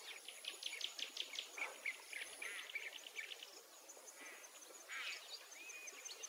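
Birds chirping, with a rapid run of short chirps in the first second or so and scattered calls after. A faint, thin, high insect buzz comes and goes underneath.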